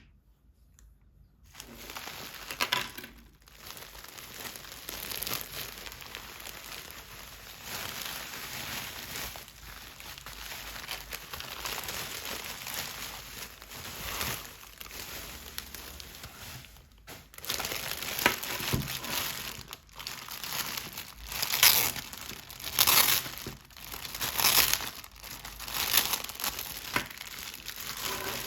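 Toy packaging being crinkled and handled in an unboxing, a continuous rustly crinkling with louder crinkles in the last third.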